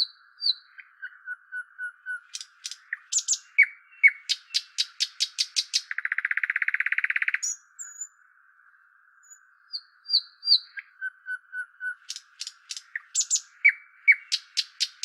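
A songbird's varied song: short high whistled chirps, a quick run of sharp clicking notes, then a buzzy trill about six seconds in. After a short pause the same phrase starts over.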